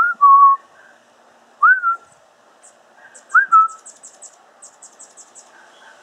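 Three loud whistled notes about a second and a half apart, each a quick upward slide followed by a short held tone. From about two and a half seconds in, faint rapid high ticking runs underneath.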